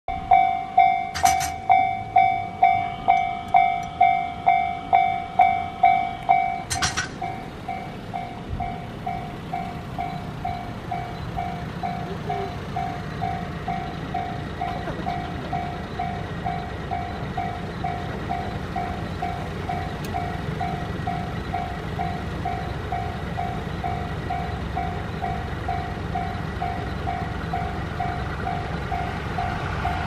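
Japanese level crossing warning bell ringing in a steady rhythm of about two strokes a second, loud for the first seven seconds and then quieter as it keeps ringing. Near the end the rumble of the approaching E657 series electric train rises under it.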